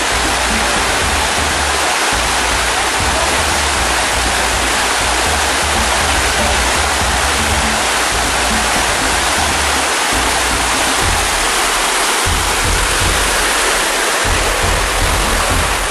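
Steady rush of a mountain creek cascading over boulders below Shannon Falls, with a deep rumble underneath that drops out briefly a few times.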